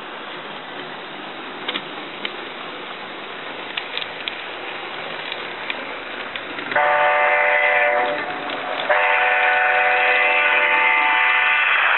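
HO-scale model of an ND5 (GE C36-7) diesel locomotive running along the track with a steady whir and a few sharp clicks from the wheels on the rails. About seven seconds in, a multi-tone diesel air horn sounds from the model's sound system: one short blast, then a long blast from about nine seconds.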